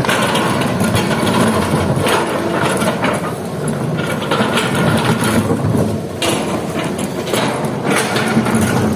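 Diesel engine of a Hitachi hydraulic excavator running steadily while it works, with several short, louder noisy surges over the course of a few seconds.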